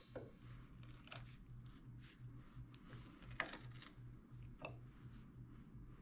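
Near silence with a few faint clicks of metal being handled: locking pliers gripping the sawn-off end of a steel gear shaft. The clearest tick comes about three and a half seconds in, over a low steady hum.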